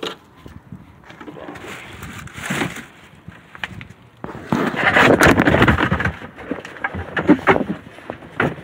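Close handling noise from car body parts and the phone being moved: scattered knocks and clicks, with a louder rough rustling stretch from about four to six and a half seconds in.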